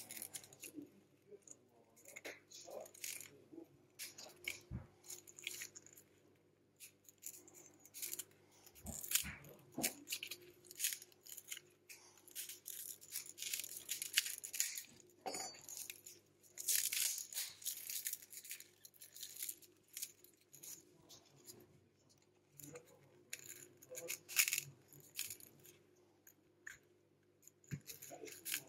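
A plastic opening pick scraping and prying along the edge of a Samsung Galaxy S9 Plus's cracked glass back cover, working it off the frame. It makes irregular scratchy crackles and sharp ticks from the glued, shattered glass.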